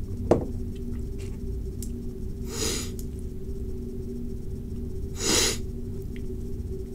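A lecture pause: steady electrical hum on the recording, a sharp click just after the start, and two short breaths near the microphone, one near the middle and one near the end.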